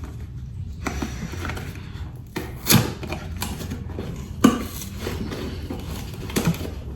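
A boxed set of cups being worked open by hand: packaging rubbing and scraping, with a few sharp knocks as the box and cups are handled.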